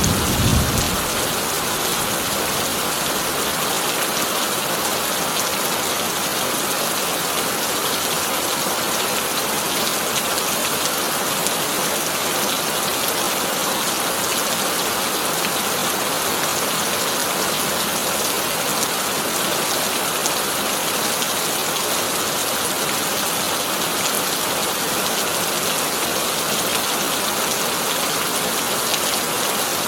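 Heavy rain pelting a corrugated tin roof in a steady, dense hiss. The low rumble of a thunderclap dies away in the first second or two.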